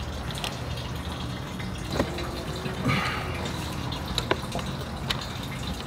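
Fluid draining in a steady stream from the underside of a 1994 Harley-Davidson Sportster 1200 into a drain pan, with a few sharp clicks.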